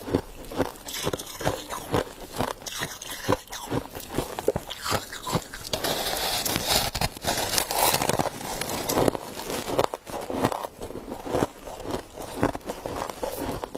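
Mouthfuls of humidifier frost being bitten and chewed: a string of crisp crunches, with a denser, steadier stretch of crunching for about three seconds in the middle.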